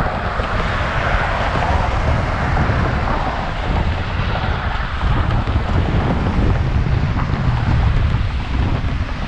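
Wind rushing over the microphone while riding a bicycle: a steady, loud rumble.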